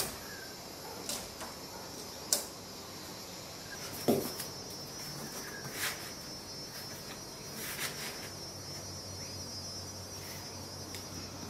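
Crickets chirping in a steady high trill that becomes clear about four seconds in, over scattered light clicks and rustles and one louder knock at about the same moment as a cardboard straightedge is laid and handled on a plastic barrel.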